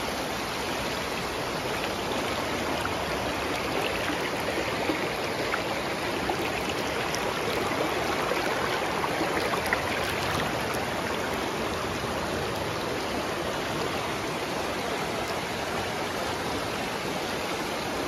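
Stream water at a ford rushing steadily, an even, unbroken wash of sound.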